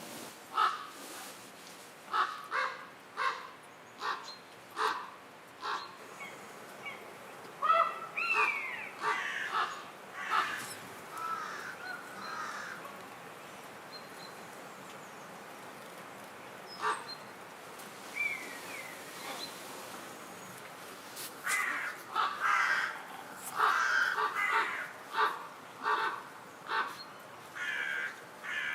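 A bird calling repeatedly with short, harsh, caw-like calls, in runs of several calls about half a second apart, with a quieter stretch in the middle.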